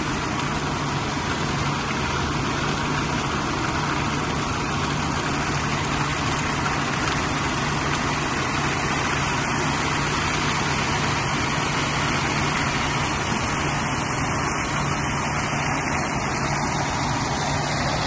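Concrete mixer truck's diesel engine running steadily to turn the drum while wet concrete slides down the discharge chute into the form, a constant even rush of noise over a low engine hum.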